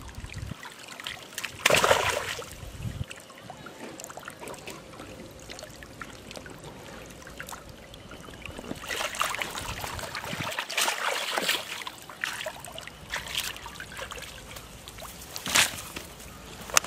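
Water splashing and trickling off a wet cast net as it is gathered and hauled out of a pond. Several bursts of splashing, a loud one about two seconds in and a longer stretch in the middle, with two short sharp splashes near the end.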